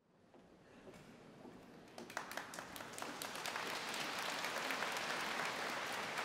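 Audience applause, fading in from silence and building over the first few seconds, then holding steady.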